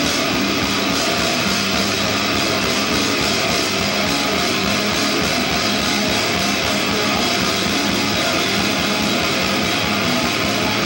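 Live rock band playing loud, dense music: distorted electric guitars over drums, with cymbals splashing steadily and no break.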